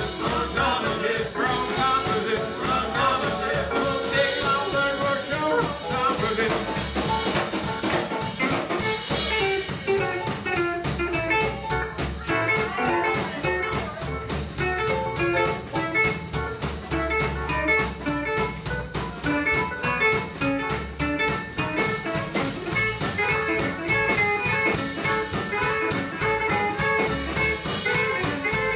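Live western swing band playing a swinging tune, guitar over a steady drum-kit beat.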